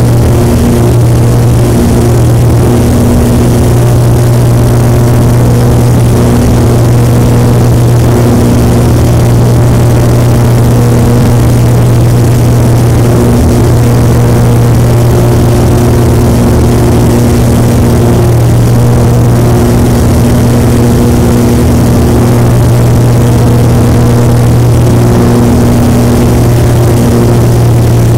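A small plane's engine and propeller droning steadily inside the cockpit, a loud constant low hum with higher tones fading in and out above it, during the approach to land.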